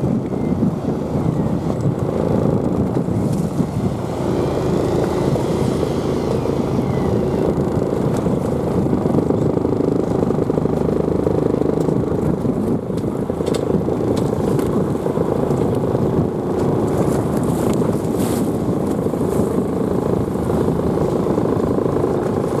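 Fishing boat's engine running steadily, a constant low drone. A few faint clicks come past the middle.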